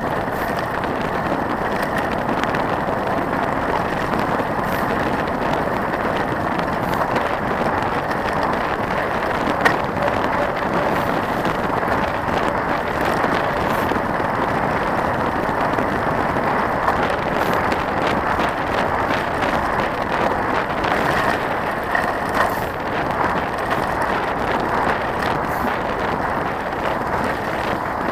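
Trek 4900 mountain bike rolling fast over a gravel forest road: a steady rush of tyre-on-gravel noise with constant small clicks and rattles, and an occasional sharper knock from stones and bumps.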